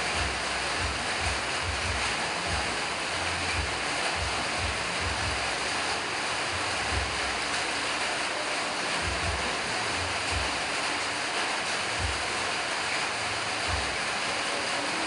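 Steady rushing hiss with irregular low thumps underneath.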